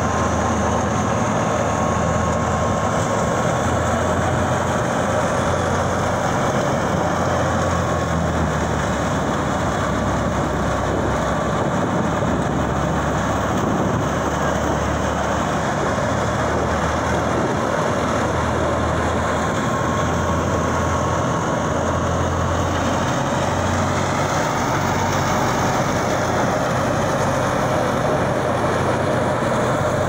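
Tractor-powered wheat thresher running steadily under load as straw is fed in: a continuous drone of the Al-Ghazi tractor's diesel engine and the machine's spinning threshing drum.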